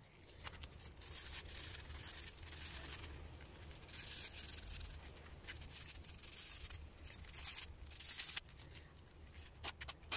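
Wooden sickle handle being sanded by hand with a strip of sandpaper: repeated rasping strokes back and forth, turning shorter and quicker near the end.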